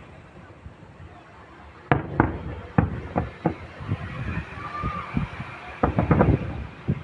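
Fireworks shells bursting in a show: sharp bangs at uneven intervals starting about two seconds in, with a quick cluster of bangs near the end.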